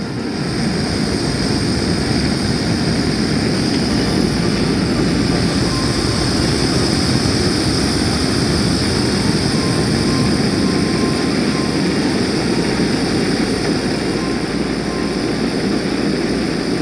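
Fire-Maple FMS-121 gas camping stove burning, a steady rushing hiss of flame that steps up in level just after the start.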